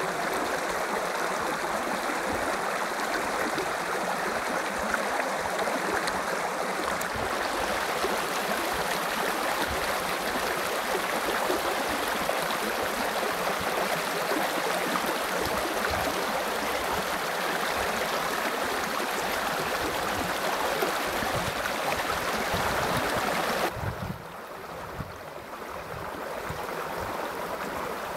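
Small spring-fed creek spilling over mossy rocks in little cascades: a steady rushing and splashing of water. Near the end it drops to a quieter, gentler flow.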